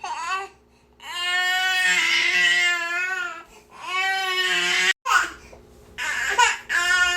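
Infant crying in a series of long wailing cries, broken by short gasps for breath.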